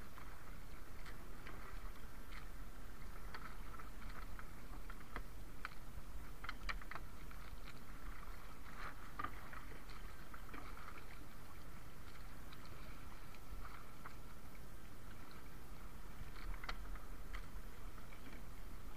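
Steady wind and water noise aboard a small wooden outrigger fishing boat, with scattered light clicks and knocks as the fishing net and its line are handled.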